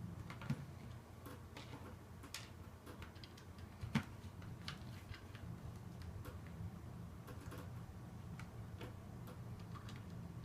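Lego pieces being handled and pressed together: scattered small plastic clicks at irregular intervals, with a sharper click about four seconds in, over a low steady hum.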